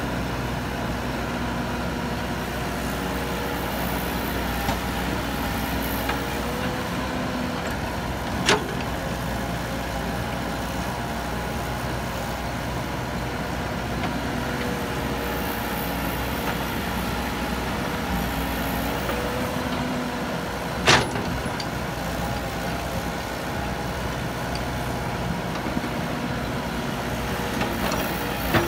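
Caterpillar E120B hydraulic excavator's diesel engine running steadily under working load while it digs and loads earth, with a held tone that wavers slightly. Two sharp knocks stand out, about a third of the way in and again about three quarters of the way in.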